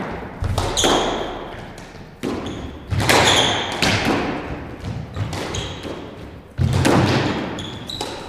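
A squash rally: sharp racket strikes and the ball smacking off the walls about once a second, each one echoing in the hard-walled court, with sneakers squeaking on the hardwood floor.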